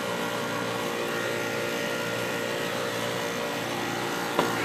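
Refrigerant recovery machine running steadily, a continuous mechanical drone with a steady hum of several tones, as it pulls the remaining refrigerant out of an AC system. A single short click near the end.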